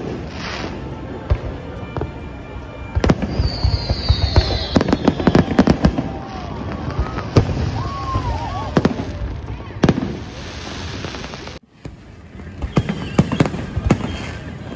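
Aerial fireworks bursting: repeated sharp bangs and crackles, coming thick and fast from about three seconds in, with a falling whistle near four seconds. The sound drops out briefly just before twelve seconds.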